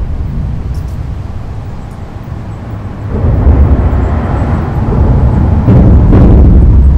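Car traffic crossing a busy road bridge, heard from underneath the deck: a deep rumbling drone. It eases off, then builds again about three seconds in as more vehicles pass over.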